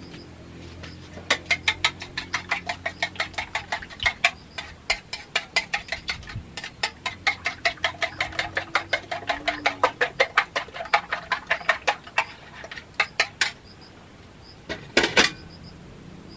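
Egg being beaten with a fork in a ceramic plate: a fast, even clinking of the fork against the plate, about five strokes a second, which stops a few seconds before the end. A short, louder noise follows near the end.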